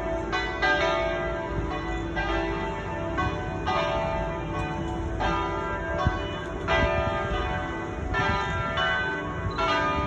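Church bells ringing: several bells struck one after another in an uneven, overlapping peal, each stroke leaving a long ring. A low steady rumble runs underneath.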